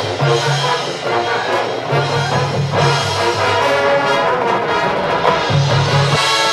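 High school marching band playing, brass section to the fore: trumpets and trombones on sustained chords over moving low brass notes.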